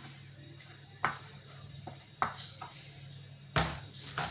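Seasoned potato pieces being set down on baking paper in an oven dish: about five short, sharp taps at uneven intervals, over a low steady hum.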